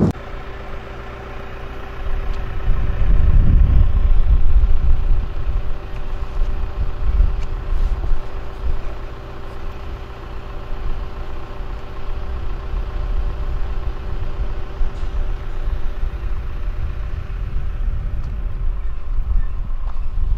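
A motor running steadily: a low hum with several unchanging tones, over a low rumble that is loudest a few seconds in.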